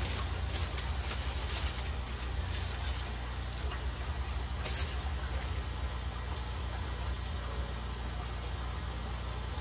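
Plastic packaging rustling and crinkling as items are handled, in short bursts about half a second to two seconds in and again near five seconds, over a steady low hum.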